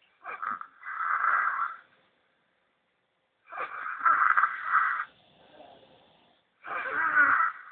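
A six-year-old boy snoring: three snores about three seconds apart, each lasting a second or more, with quiet between them.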